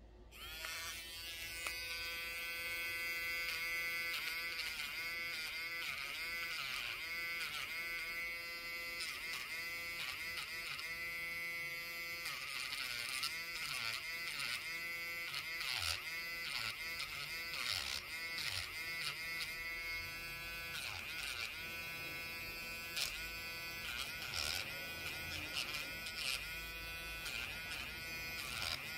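Pen-style electric nail drill with a sanding band bit switching on just after the start and running with a steady whine. Its pitch dips briefly again and again as the spinning bit is pressed lightly against a fingernail to file it.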